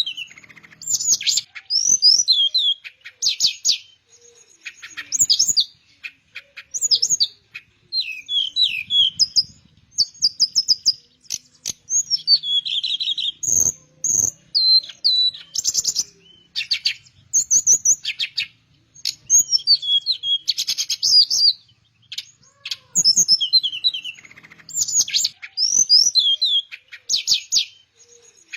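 Teledekan melayu singing: bursts of quick, varied whistles and trills, each a second or two long, with short pauses between, repeated on and on. One sharp click about halfway through.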